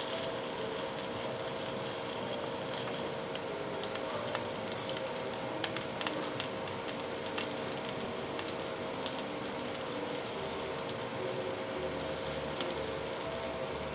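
Okonomiyaki batter of cabbage and seafood frying in a hot nonstick pan: a steady sizzle with scattered small pops and crackles.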